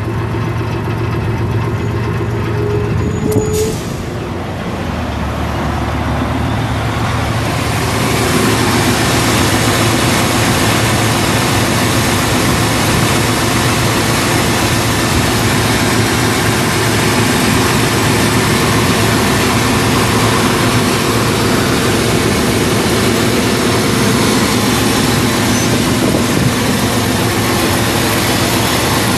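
A 1997 GMC Sierra 1500's 4.3-litre V6 idling steadily, heard up close in the open engine bay. The sound grows fuller and brighter over the first several seconds. A short rising whine and a click come about three and a half seconds in.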